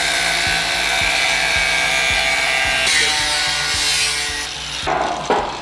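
Handheld angle grinder cutting through a steel C-channel roof purlin: a steady, loud grinding noise that shifts in tone about three seconds in and stops about five seconds in as the cut finishes.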